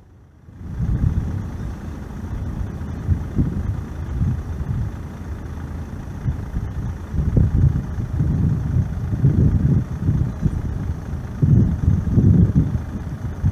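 Cummins ISC 8.3L inline-six diesel of a Ford F800 truck running at low speed as an uneven low rumble, with swells that suggest wind buffeting the microphone. The sound drops out briefly right at the start, then comes back.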